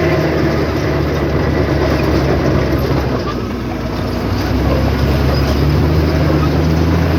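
Heavy diesel engine of an earthmoving machine running hard with a low, steady drone. It eases off a little past halfway, then picks up again.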